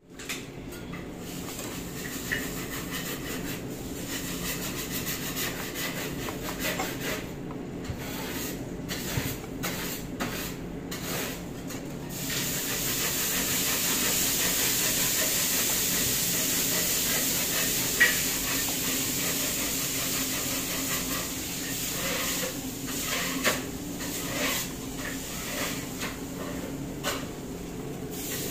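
Commercial kitchen background noise: a steady hiss over a low hum, which grows louder about halfway through. A few sharp clicks and light scraping sound over it, the loudest click about two-thirds of the way in.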